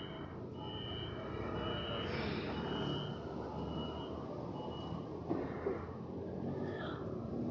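Electric multiple-unit train standing at the platform, sounding a short high warning beep about once a second, six times, over the low hum of the train. The beeps are typical of the door-closing warning before departure.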